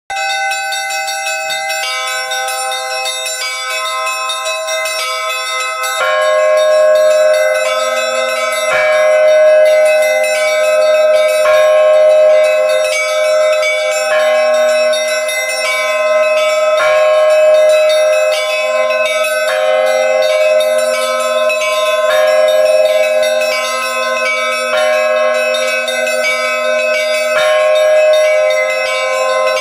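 Bells ringing: a new stroke every two to three seconds over long, overlapping ringing tones. The sound grows louder about six seconds in, when a low steady hum joins it.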